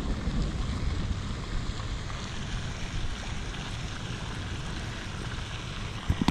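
Wind buffeting the microphone: a steady low rumbling noise with a hiss above it. A couple of short knocks near the end as a hand touches the camera.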